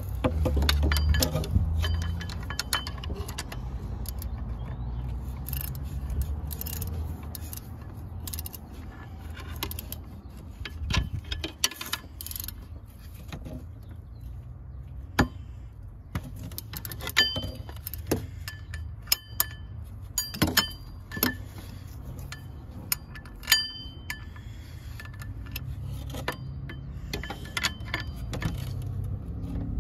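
Metal hand tools and parts clinking and tapping against metal in scattered sharp clicks, some ringing briefly, busiest in the second half, over a steady low hum.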